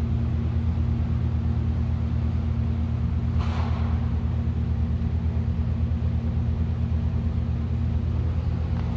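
A steady low mechanical rumble with a fast, even pulse, like a running motor. About three and a half seconds in there is a short hiss.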